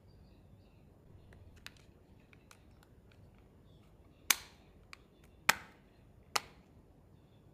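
Three sharp clicks about a second apart in the second half, after a few fainter ticks, from the phone and its packaging or accessories being handled and snapped into place.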